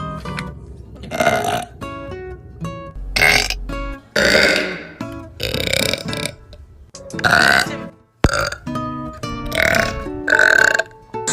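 A girl burping loudly several times in a row, long drawn-out burps, over background music with guitar.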